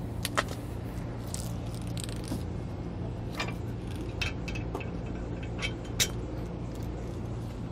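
A brass fitting on a coiled line being handled and plugged into its coupler on the motorhome: scattered light clicks and clinks, with a sharper click about six seconds in, over a steady low hum.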